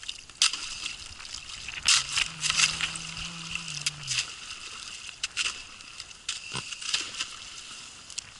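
Thin ice cracking and crunching against a boat's hull as the boat pushes through it: a dense run of sharp cracks and crackles over water sloshing, with a brief low steady hum about two seconds in.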